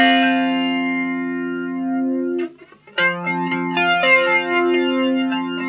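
Electric guitar (Epiphone Les Paul) chords through a Mooer E-lady flanger pedal into a Vox AC4TV amp. One chord rings out and is cut off about halfway through, then a second chord is struck and left ringing.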